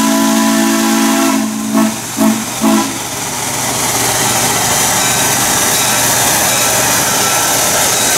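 Steam locomotive whistle: a long blast that ends about two seconds in, followed by two short toots. The locomotive then keeps up a steady hiss and running noise as it approaches.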